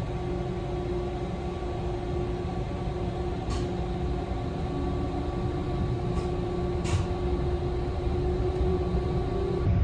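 S-Bahn commuter train running: a steady low rumble with a droning motor hum, broken by a few brief high hisses.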